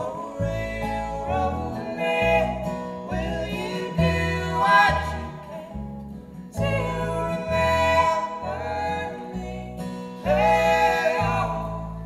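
Live acoustic bluegrass-style music: singing over two strummed acoustic guitars and a plucked upright bass holding low notes.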